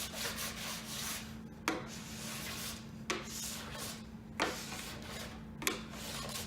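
Wax scraper scraping dried hard wax off a snowboard base in quick repeated strokes, with a sharp tap about every 1.3 seconds. The wax is thick on the tail, so it is hard to get off.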